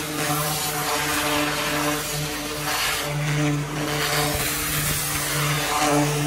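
Hot-water pressure washer blasting the inside of a plastic wheeled trash can, a steady hiss of spray over a steady engine hum.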